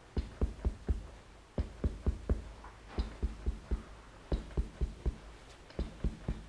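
Rhythmic percussive blows on a client's body during Chinese bone-setting massage, in short runs of three or four quick knocks repeated every second or so.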